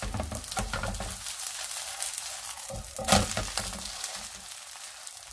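Chive pancake sizzling in oil in a nonstick frying pan, with a slotted spatula pressing and scraping it against the pan; a louder scrape comes about three seconds in.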